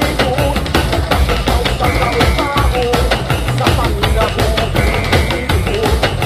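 Background music with a steady drum-kit beat under a wavering melody line.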